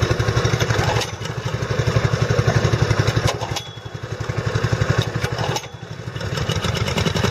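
Small gasoline engine driving a gold dredge's high-pressure water pump, running with a rapid low putter; its level dips and swells a few times.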